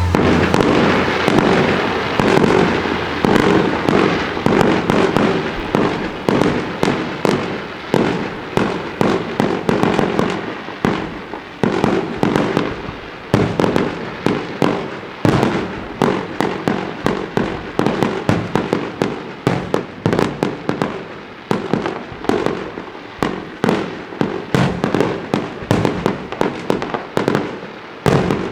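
Fireworks going off in a dense, continuous barrage: rapid sharp bangs and cracks, several a second, with a thicker rumbling wash of noise in the first few seconds.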